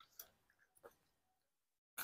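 Faint chewing, with a few soft mouth clicks in the first second, then near silence.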